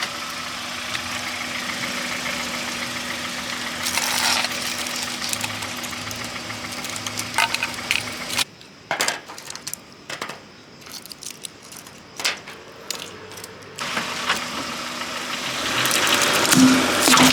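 Car engine running with a steady hum as the car is driven over the printed parts. About eight seconds in it cuts off suddenly to a quieter stretch of scattered clicks and cracks, then the engine sound comes back and grows louder near the end.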